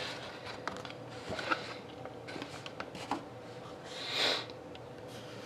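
Quiet handling of trading cards: light clicks, taps and paper rustles as a stack is lifted out of a metal tin and set down on a table. A soft whoosh comes about four seconds in.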